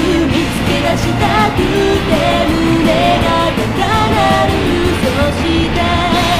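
Background pop song with a sung melody over a full band backing.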